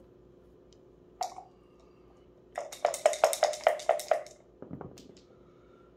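A backgammon checker clicks down on the board about a second in. Then dice rattle quickly in a dice cup, about seven clicks a second for a second and a half, and clatter out onto the board.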